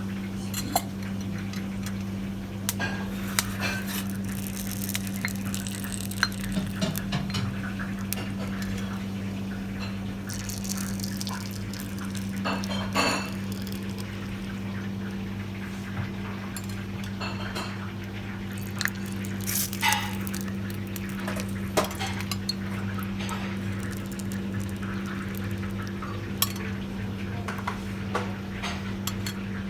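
Dishes and cutlery clinking and clattering in scattered short knocks, over a steady low electrical hum.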